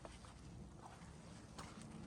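Faint footsteps on a mountain trail, a few soft steps over a low background hush.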